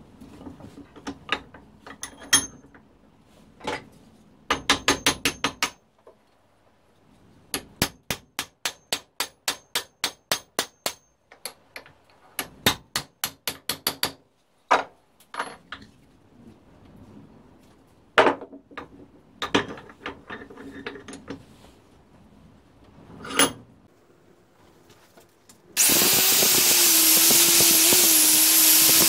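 Hammer blows ringing on steel at a bench vise as the old blacksmith's hammer head is worked free of its split handle: single strikes and fast runs of about five or six a second. Near the end an angle grinder fitted with a wire cup brush starts up with a loud, steady whine, wire-brushing rust off the hammer head.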